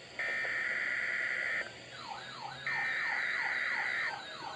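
NOAA Weather Radio SAME header data bursts: two steady, buzzy digital bursts of about a second and a half each, the second starting over halfway through. From about two seconds in, a weather alert radio's alarm sounds with a falling siren-like sweep repeating about three times a second, joined by a fainter warbling high tone. These signal the receivers decoding a Required Weekly Test.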